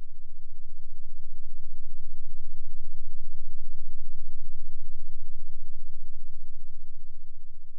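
A deep, low hum that swells and fades away over several seconds with a fast flutter, over a faint steady high-pitched whine.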